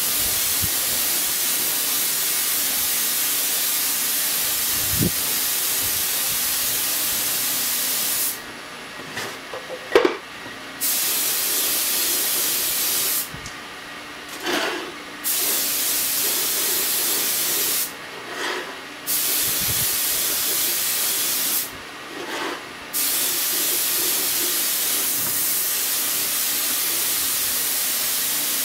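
Compressed-air spray gun with a siphon-feed cup, hissing steadily as it sprays finish. It is cut off by the trigger four times for a second or two, and small knocks are heard in the pauses.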